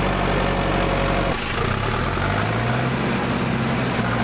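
Mahindra Arjun Novo 605 tractor's diesel engine idling steadily. About a second and a half in, the sound changes abruptly: the deep low hum drops away and a slightly higher, steady engine note with more hiss carries on.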